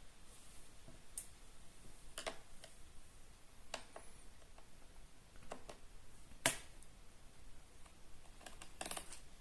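Sporadic light clicks and taps from small screws and tools being handled on a laptop's bottom case, the sharpest about six and a half seconds in and a quick cluster near the end.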